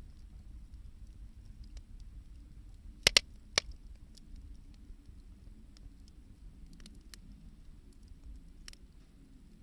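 Wood fire of 2×4 lumber and found scrap wood crackling: scattered small ticks, then three loud sharp pops about three seconds in and another smaller pop near the end, over a low steady rumble.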